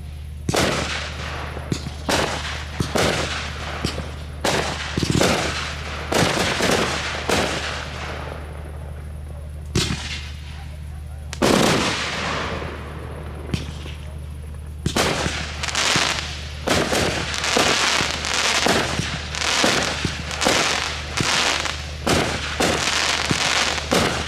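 Aerial fireworks bursting in a display: a string of sharp bangs, each with an echoing tail, spaced irregularly at first and then coming rapidly one after another for the last third.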